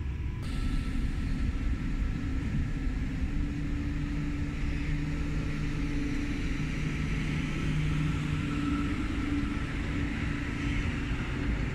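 Electric S-Bahn train at the platform giving off a steady hum and whine from its onboard equipment over a low rumble.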